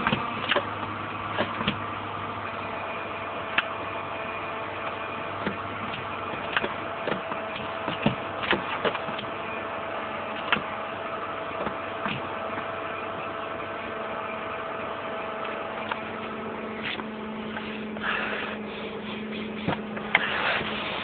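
Toyota Ipsum's 2AZ four-cylinder running with a steady high-pitched whistle over the engine hum and light scattered clicks; the owner cannot tell whether the whistle comes from the automatic transmission or the engine.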